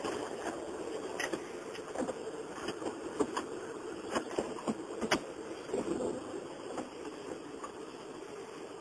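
Steady car cabin noise while driving, the road and engine sound heard through a mobile phone's microphone, with scattered light knocks and rattles.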